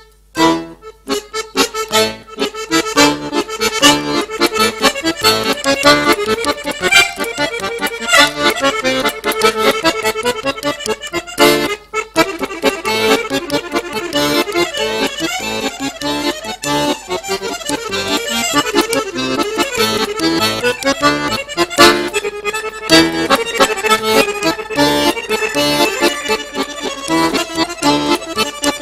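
Piano accordion played solo at a fast pace, a busy stream of quick notes over a bass line, with a momentary break near the middle.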